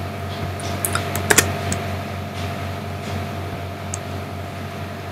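A few sharp computer keyboard clicks, a cluster of them about a second and a half in and single ones later, over a steady low hum.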